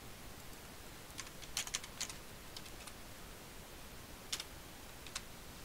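Typing on a computer keyboard: a quick run of keystrokes from about one to three seconds in, then two single taps near the end.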